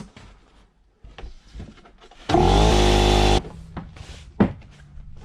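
Air inflator briefly putting a little air into a motorcycle inner tube so it holds its shape before the tire goes on: a hissing burst about a second long, with a motor hum that rises as it starts, cutting off sharply. A few small clicks and knocks come before and after it.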